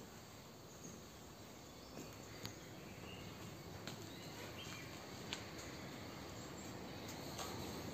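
Low ambient background with faint chirping from birds or insects and a few soft clicks scattered through it.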